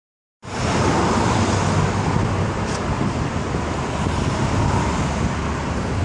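Steady road-traffic noise from a busy highway, starting about half a second in.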